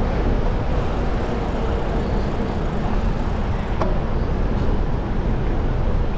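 City street traffic noise with a steady low rumble, picked up by a camera riding a bicycle along a bike lane. A brief click about four seconds in.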